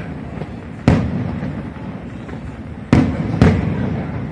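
Aerial fireworks shells bursting: three sharp bangs, one about a second in and two close together near the end, over a continuous low rumble of further bursts.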